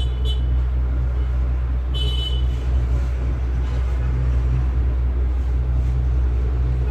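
A steady low hum, with short high-pitched tones at the start and again about two seconds in.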